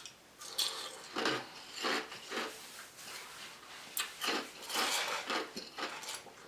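Ice being crunched and chewed close to the microphone, in a string of irregular crisp crunches, about two a second.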